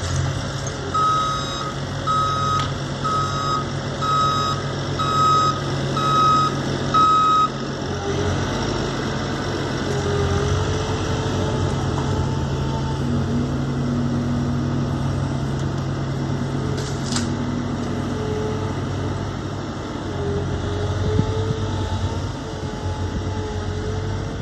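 A heavy machine's engine running steadily while its reversing alarm beeps seven times, about one beep a second, then stops beeping. The engine keeps running, with a whine that rises and falls in pitch.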